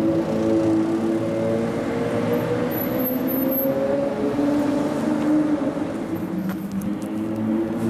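Ferrari F12's V12 engine running at low revs in slow traffic: a steady low drone whose pitch rises and falls slightly as the car moves off and eases along.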